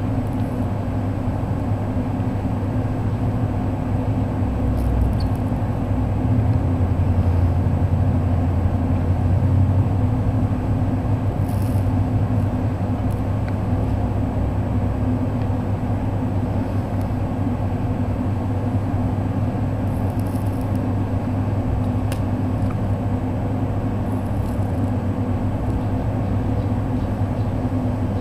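Steady low hum and rumble, with a few faint clicks scattered through it.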